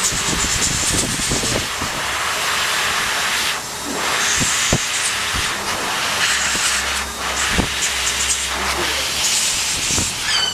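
A steady, loud hiss of rushing air, dipping briefly three times, with a few soft knocks.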